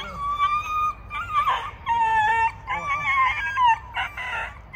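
A pit bull squealing in a string of high-pitched cries, as if hurt after a scuffle with another dog, which the owner takes for play-acting: the other dog hardly touched her.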